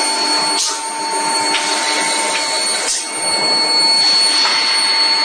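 Forging-line machinery running with a steady whirring noise and a few thin steady tones, with brief hissing swells about a second and three seconds in.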